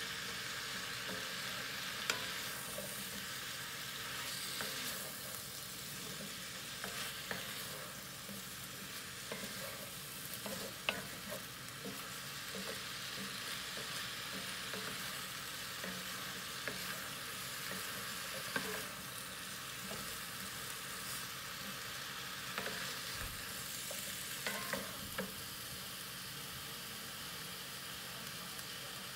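Vegetables and chicken sizzling in a cast-iron skillet as a stir-fry, turned with a wooden spatula, with scattered scrapes and knocks of the spatula against the pan over a steady hiss.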